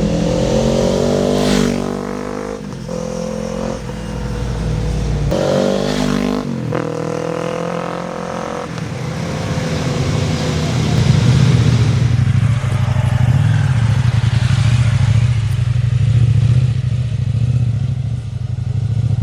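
Kawasaki KLE 500 parallel-twin engine through an aftermarket Avionic exhaust, revved up and back down twice in the first seven seconds, then running steadily at a lower, deeper note.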